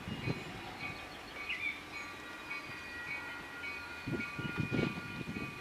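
Railroad grade-crossing warning bell ringing over and over in the distance as a train approaches. A low rumble rises about four seconds in, and a bird chirps once.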